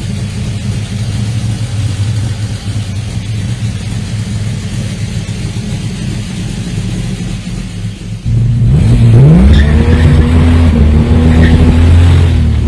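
Hot-rodded Chevrolet Chevy coupe engine idling steadily. Then, about eight seconds in, it switches abruptly to the engine heard under way, louder, revving up in a rising pitch as the car pulls away and then holding a steady note.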